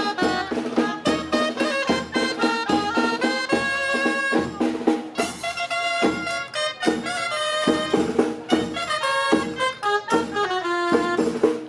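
Traditional folk music: a loud wind instrument playing a fast stepping melody over a steady drum beat.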